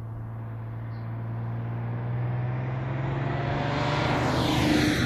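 Audi A6 C5 2.5 TDI V6 diesel engine and exhaust at a steady drone as the estate car drives toward the listener, growing steadily louder with rising tyre noise until it passes close near the end.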